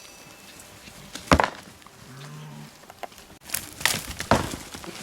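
Rams clashing horns head-on in a fight: a sharp crack about a second in, then two more close together near the end.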